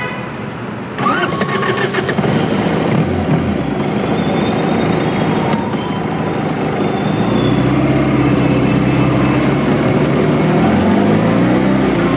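Benelli 302R's 300cc parallel-twin engine cranked on its electric starter and catching about a second in, then running at idle. Near the end its pitch rises and falls with light throttle.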